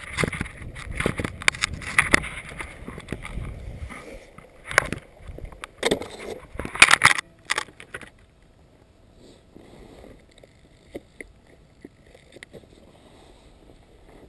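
Wind rumbling on a body-worn camera's microphone, with fabric rubbing and scraping knocks against it, loudest around five to seven seconds in. After about eight seconds it drops to a muffled, much quieter handling noise with faint scratches.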